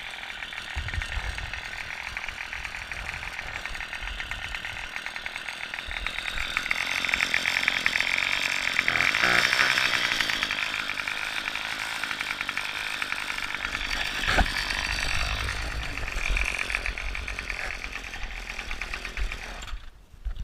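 Small gasoline engine running steadily, its rapid firing pulses growing louder about eight seconds in and easing off again after ten seconds.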